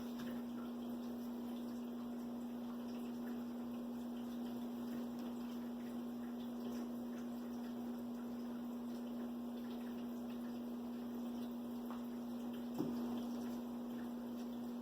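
Steady low hum over faint room noise, with one soft tap about 13 seconds in.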